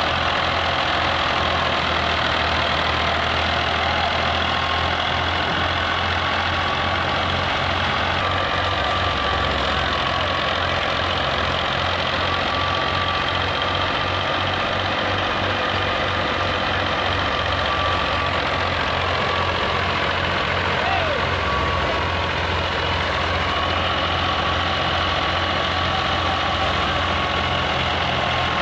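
Fiat 480 tractor's three-cylinder diesel engine running steadily at working speed, powering a stationary crop thresher. The engine's fast low beat sits under a steady high hum from the threshing machine.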